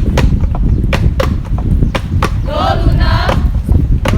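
Percussion accompanying a traditional hula chant: a series of sharp, irregularly spaced drum strikes, with a male-style chanted phrase for about a second in the middle, over a steady low rumble.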